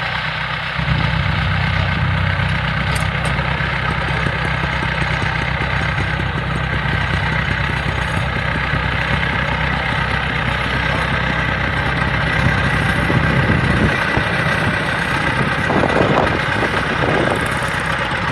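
Engine of a rice harvesting machine running steadily, with a constant mechanical din. The low engine note comes in louder about a second in and drops away about fourteen seconds in.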